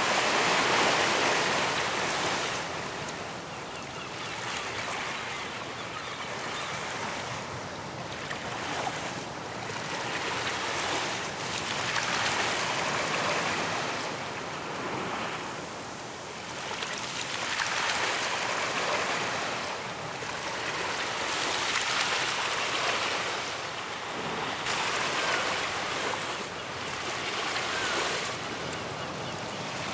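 Ocean waves breaking and washing onto a beach, the surf hiss swelling and easing every few seconds.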